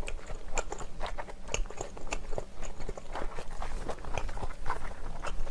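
Close-miked mukbang chewing: the wet, squishy smacking of a mouthful of soft, slimy food, a quick irregular run of small mouth clicks.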